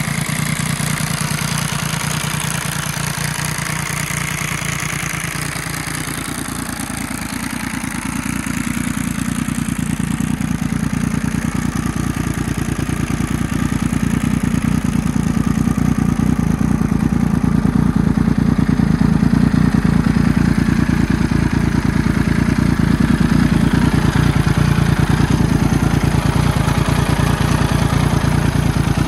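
Benelli TNT R160's 1130 cc inline three-cylinder engine idling steadily, growing louder about ten seconds in.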